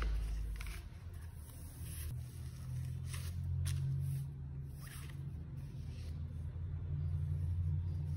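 Soft rustling and sliding of paper and plastic packaging as a screen protector in its paper sleeve is taken out of a phone box, with a few brief scrapes over a low steady hum.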